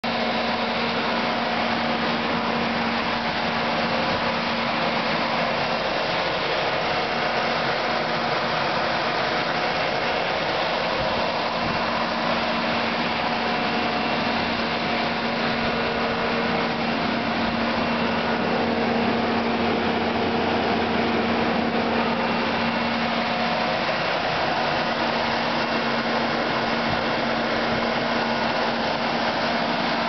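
Steady machine hum with a low held tone and a hissing noise above it, not changing.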